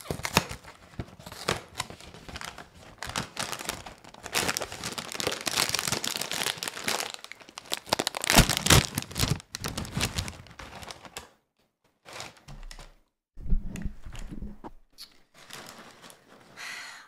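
A cardboard cereal box being opened, its plastic inner bag crinkling and tearing as it is pulled apart, loudest about eight seconds in. After about eleven seconds it dies down to a few scattered rustles.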